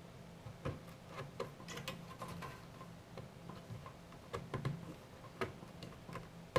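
Scattered light clicks and small knocks, irregularly spaced, of PC parts and cables being handled on an open metal test bench, over a faint steady hum.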